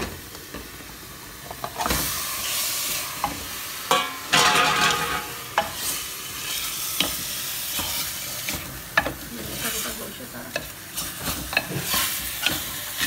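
Pieces of raw beef sizzling in hot oil with fried onions and ginger-garlic paste in a metal pot. A spatula stirs them, scraping and knocking against the pot. The sizzle swells loud about two seconds in, as the meat settles into the oil.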